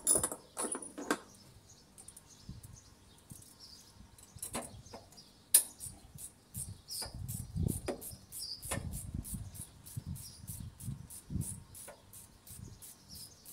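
Hand tools clicking and knocking against metal in the engine bay of a 2005 Toyota Yaris as the A/C compressor is being unbolted, with one sharp crack about five and a half seconds in and a run of quick light clicks after it. Faint bird chirps are heard behind.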